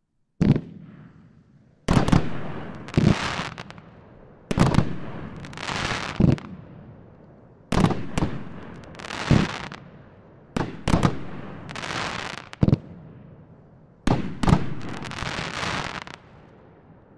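A 23-shot consumer repeater cake (500-gram cake) firing shot after shot into the air. Sharp bangs come every second or two, some in quick pairs, each trailing off in a fading hiss as the burst spreads.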